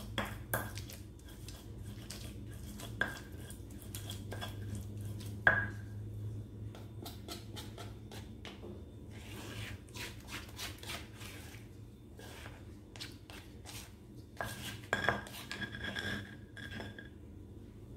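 Stone pestle grinding spice paste in a stone mortar (cobek): repeated scraping and clicking of stone on stone, with a few sharper knocks that ring briefly, several of them close together near the end.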